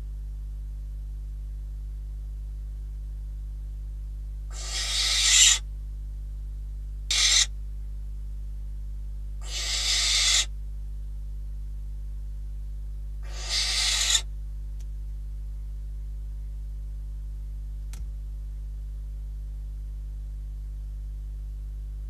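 Barn owl giving four harsh, hissing snore calls, each half a second to a second long, that swell and then break off, over a steady low electrical hum.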